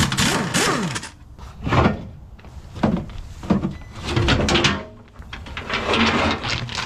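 Metal clunks and scraping as parts of a skid steer are handled: a sharp knock at the start, several separate knocks and clatters, then a longer scraping stretch near the end.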